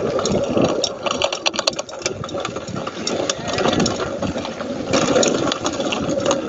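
Steady rumbling noise with many quick rattling clicks, from riding along a rough trail.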